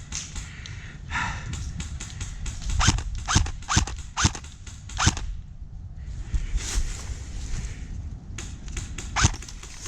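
Airsoft guns firing in an exchange during the game: sharp single pops at uneven spacing, about five in a row from about three seconds in and one more near the end.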